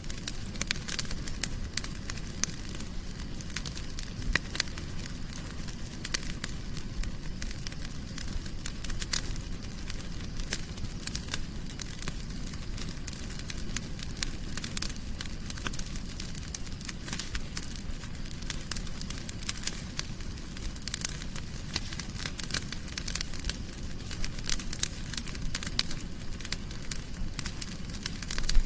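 Fire crackling in a fireplace: frequent sharp pops and snaps over a steady low rumble of flames.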